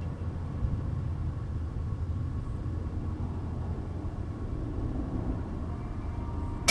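Steady low rumble of wind buffeting the microphone, with one sharp click at the very end.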